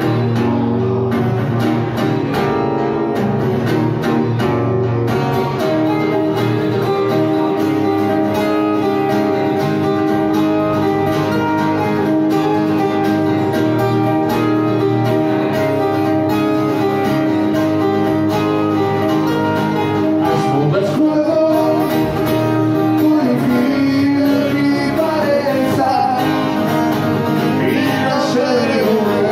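Live acoustic rock from two guitars, one of them an acoustic, strummed and picked together, with a voice singing over them.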